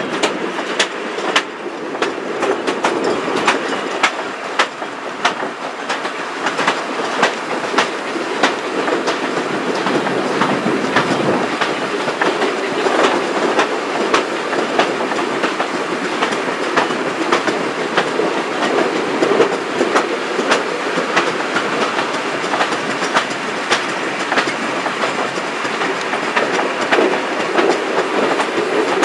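Vintage railway carriage rolling along jointed track: a steady rumble from the wheels with regular sharp clicks as they cross the rail joints.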